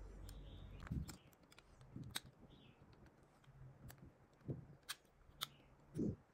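Faint handling sounds of a Vertu Signature S phone: several sharp clicks as its keys are pressed, with a few soft low thumps as it is turned in the hands.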